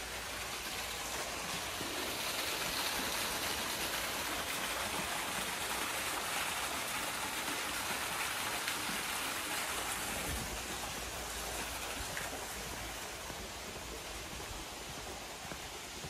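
Nunobiki Ontaki waterfall running thin at low flow, falling into its plunge pool: a steady rush of falling water, quieter than a waterfall of its height usually sounds, easing a little in the last few seconds.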